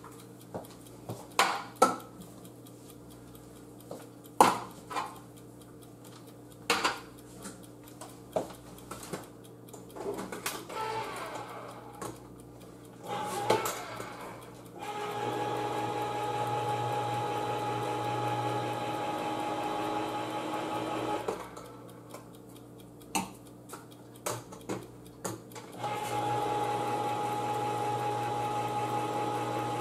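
Electric can opener opening a can of green beans. First come clicks and knocks as the can is fitted, then the motor runs with a steady whine for about six seconds. It stops, there are a few more clicks, and it starts again about four seconds later.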